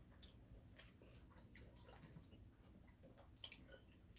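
Near silence: a few faint clicks of chopsticks and soft chewing of fried pork cutlet at a dining table, with one slightly sharper click about three and a half seconds in.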